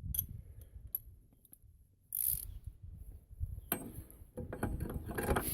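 Socket ratchet wrench being worked, with clusters of clicks and small metal clinks of tools.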